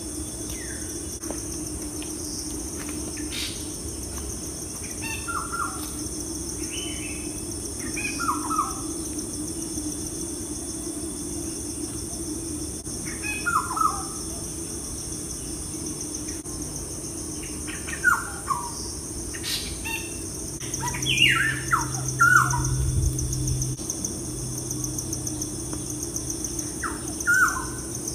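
Birds chirping in short falling calls every few seconds, more often in the second half, over a steady high-pitched insect trill such as crickets.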